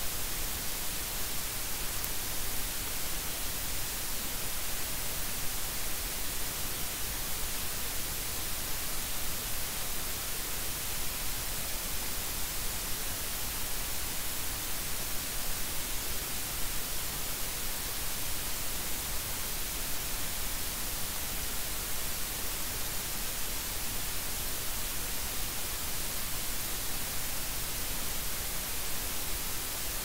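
Steady, even hiss: the amplified noise floor of a microphone preamp at high gain, fed by a 150-ohm XLR dummy load through a shielded XLR cable and boosted 40 dB. The hiss holds even with no hum or buzz coming through, a sign that the cable is picking up no noticeable RFI/EMI interference.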